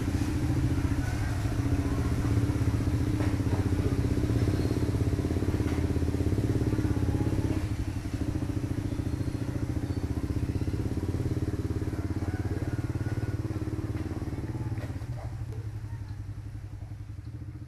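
A small engine running steadily at an even pitch, fading over the last few seconds.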